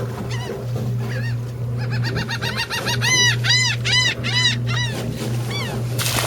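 Birds calling in a quick series of short, arched cries, several a second, over a steady low hum from the boat's engine. A short burst of noise comes near the end.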